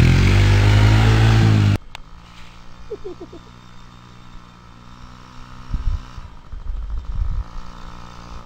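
ATV engine running loudly close by, cutting off suddenly about two seconds in. After that, a quieter ATV engine keeps running steadily at a distance, with a few low thumps.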